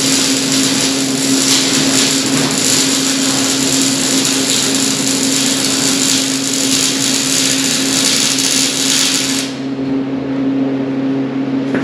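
Electric arc welding: the arc crackles steadily over a constant hum, then cuts off about three-quarters of the way through as the weld bead stops, leaving the hum.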